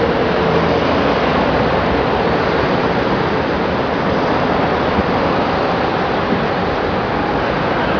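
Dense multi-lane highway traffic moving at speed: a steady, even wash of traffic noise with no single vehicle standing out.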